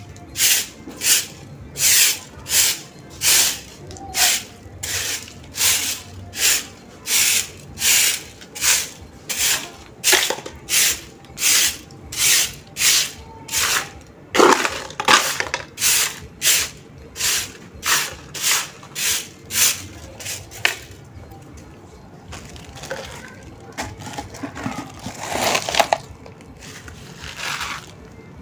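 Stick broom sweeping damp ground: steady, rhythmic swishes, about three every two seconds, that stop about twenty seconds in, giving way to softer, irregular scraping and rustling with a few louder swishes.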